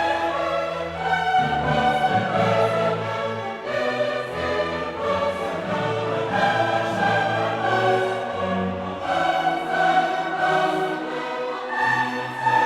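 Background music: orchestral piece with choir-like voices and strings.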